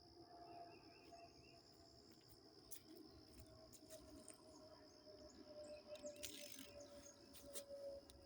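Faint, steady high insect trill, like crickets, with a few faint clicks and a short rustle near the end.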